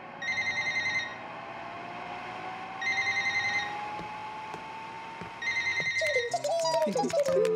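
A telephone rings three times, each ring a short trilling burst, over the steady whirr of a salon hood hair dryer whose whine rises slowly in pitch.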